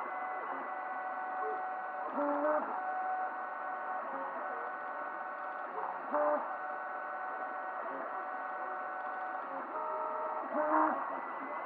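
Desktop FDM 3D printer printing. Its stepper motors sing in steady tones that change pitch with each move, and a louder quick run of moves comes about every four seconds.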